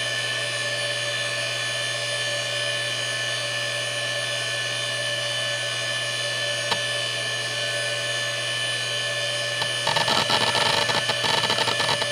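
Seagate Barracuda 9LP ST39173W, a 7,200 RPM ball-bearing SCSI hard drive, spinning with a loud steady whine and hum. A single click comes about two-thirds in. Near the end comes a rapid burst of head-seek chatter as the drive is read during boot.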